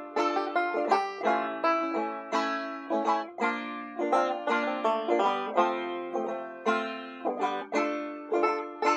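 Background music: a solo plucked string instrument, banjo-like, playing a quick run of picked notes that each ring and fade.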